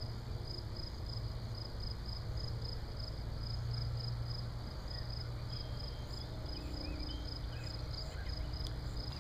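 Insects chirping in an even, high-pitched pulse, over a low steady hum. A few faint bird calls come in about six to seven seconds in.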